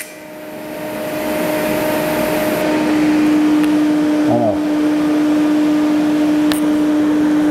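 The buzz of an AC TIG arc on aluminium cuts off at the very start, leaving a steady machinery hum with a low drone that grows louder over the first three seconds. There is a faint click near the end.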